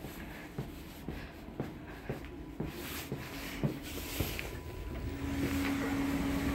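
Footsteps walking down the aisle of a passenger train car, about two steps a second, over the low steady rumble of the train interior. About five seconds in, near the connecting door, a steady hum comes in.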